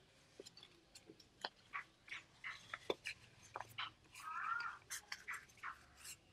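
Sheet paper rustling and crackling as a folded paper envelope is handled and opened out by hand: a run of short, irregular crinkles and taps, with a brief squeaky rub of paper a little after four seconds in.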